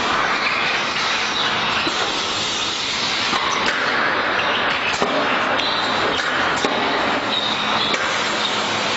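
Assembly-line machinery running: a steady mechanical noise with a faint high whine and a few sharp clicks in the middle.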